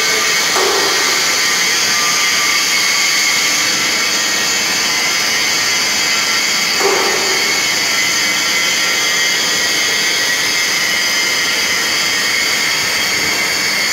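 Proton 50 kg mass mixer's electric motor and drive running: a loud, steady mechanical whir with a strong high hiss, with one brief knock about seven seconds in.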